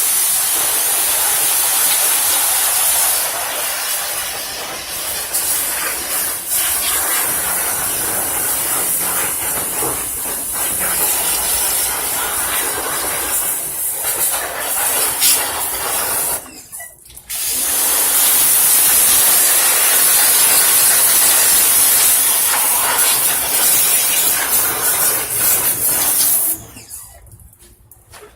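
Pressure washer jet spraying the engine, a loud steady hiss as it rinses off the degreaser. The spray stops for a moment about two-thirds of the way through, then cuts off near the end.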